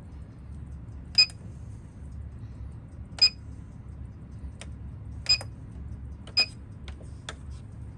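Four sharp, ringing clicks, the first three about two seconds apart and the last a second later, with a few fainter ticks between, over a steady low hum.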